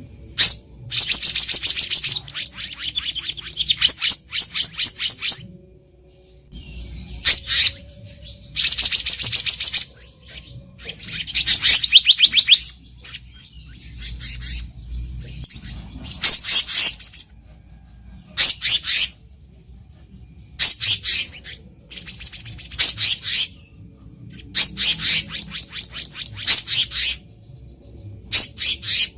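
Black-naped monarch calling: bursts of rapid, evenly repeated high notes, each burst lasting about one to two seconds, with short pauses between them.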